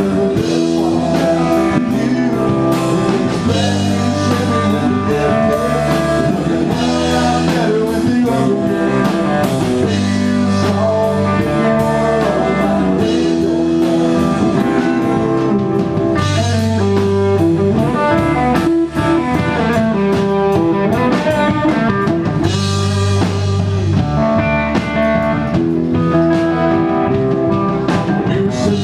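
Live band playing an instrumental stretch without singing: electric guitar over a drum kit, with steady drum hits throughout.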